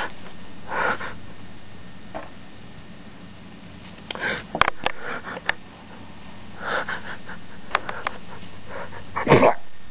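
Breathy sniffs and puffs close to the microphone, four of them spread a couple of seconds apart, the last the loudest, with scattered clicks and rustles from a stuffed toy being handled right by the camera.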